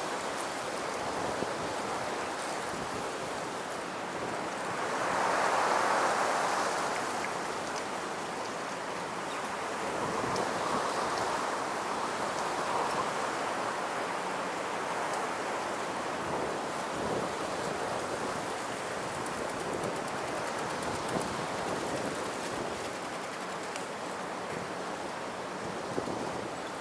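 Wind gusting through woodland trees: a steady rush that swells into a stronger gust about five seconds in, then rises and falls more gently.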